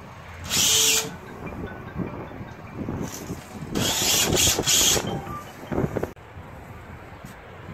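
Cordless drill-driver driving screws through a 4 mm laminated plywood panel into a van's rear door, in short bursts: one about half a second long near the start and a longer, pulsing run around four seconds in.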